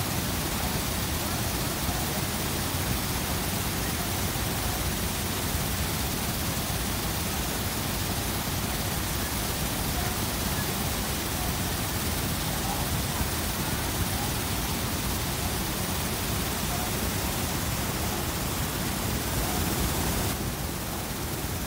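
Water pouring over a low mill dam's spillway into the churning pool below: a steady rushing hiss. It dips slightly in level near the end.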